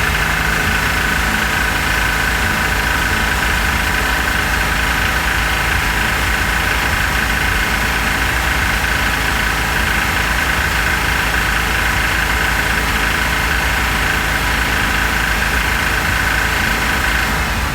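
A 2006 Porsche Cayman S's 3.4-litre flat-six running steadily, heard close up with the engine cover off, with the knocking noise that shows up once the rebuilt engine has warmed up; the owner has ruled out external sources.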